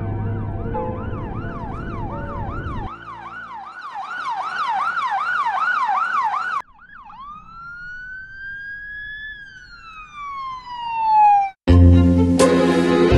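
Emergency-vehicle siren wailing in a fast, rapidly warbling pattern, growing louder, then cutting off abruptly about halfway through. A single long whistle-like tone follows, rising slowly, then falling in pitch as it gets louder, and stopping abruptly just before music comes back in near the end.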